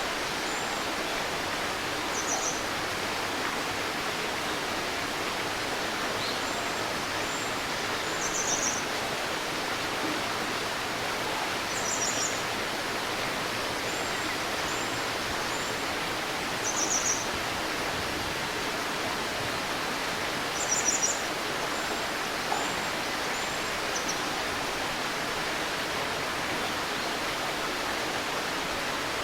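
A shallow stream babbling steadily, with a bird giving short high chirps every few seconds and faint thin calls in between.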